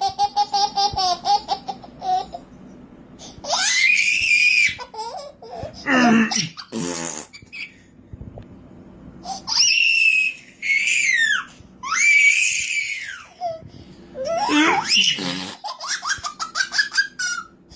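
A baby laughing in repeated bursts of quick giggles and high squeals, between an adult's silly drawn-out vocal noises.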